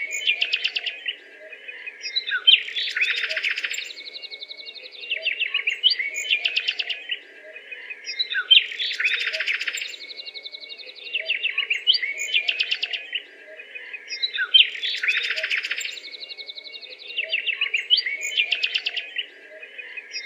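Small birds chirping in rapid trills and tweets, with the same run of chirps repeating about every six seconds, over a faint steady low hum.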